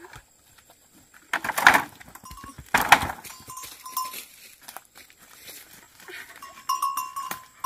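Cattle at a bamboo gate: two loud breathy snorts a second apart, about a second and a half in, with light bell-like clinks on and off that grow busier near the end.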